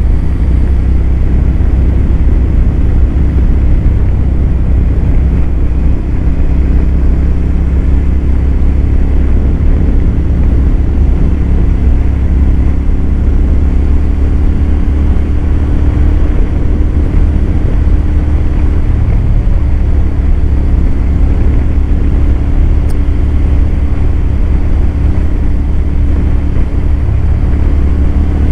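Royal Enfield 650 parallel-twin motorcycle engine running at a steady cruising speed, its note holding nearly constant, under a constant rush of wind noise.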